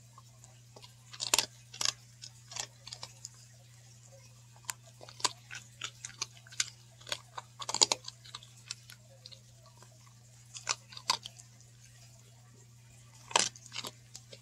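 A dog chewing and crunching pieces of a dog cookie. Irregular runs of sharp crunches come with pauses between them; the loudest fall a second or so in, in the middle, and near the end.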